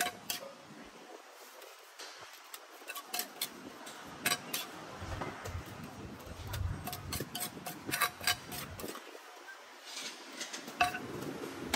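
Metal spoon clinking against a small metal cup and the clay mortar as papaya salad is scooped out: scattered sharp clinks, with quick runs of them near the middle and again near the end.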